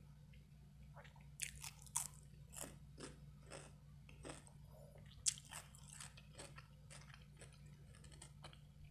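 Close-miked biting and chewing of a fresh cucumber slice: a string of crisp crunches, about two a second, with the sharpest ones about two seconds in and past the middle.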